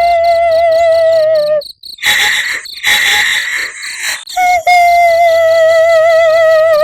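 Spooky female-ghost crying sound effect: a high, wavering wail held on one note that sags at its end, breaks off into a breathy, hissing sob, then resumes. A fast, high, cricket-like pulsing runs beneath it.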